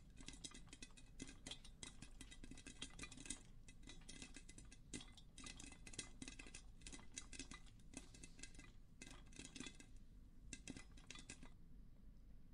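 Popcorn popping: many quick, irregular pops in clusters, dying out about a second before the end as the batch finishes.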